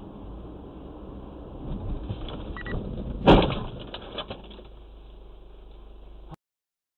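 Car crash heard from inside the car through a dashcam: steady engine and road noise, then one sharp bang about three seconds in as a white sedan cutting in from the side strikes the front of the car, followed by about a second of rattling. The sound cuts off abruptly near the end.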